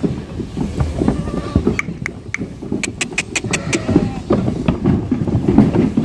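Hooves of a crowd of goats and sheep scuffling and clattering on brick as the herd jostles down a narrow passage. A quick run of sharp clicks comes about three seconds in.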